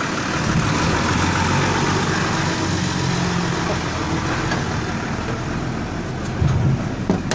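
Motor vehicle engine running nearby, with a steady low hum over road traffic noise.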